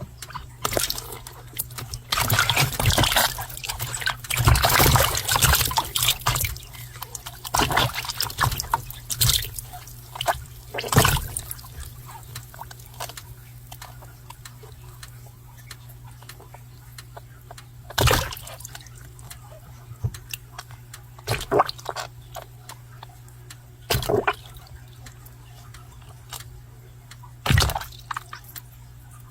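Water splashing and sloshing: a busy run of splashes in the first few seconds, then single splashes every few seconds, over a steady low hum.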